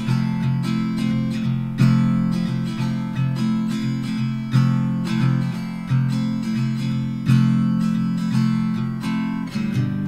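Background music: a strummed acoustic guitar playing chords.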